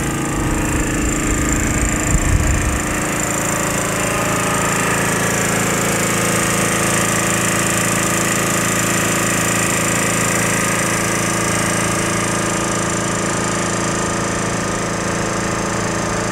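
Portable generator engine running, a loud steady drone heard close up, with a brief louder low rumble about two seconds in.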